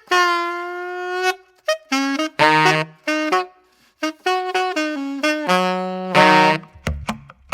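Background music: a melody of held and short notes, with a beat of drums and bass coming in near the end.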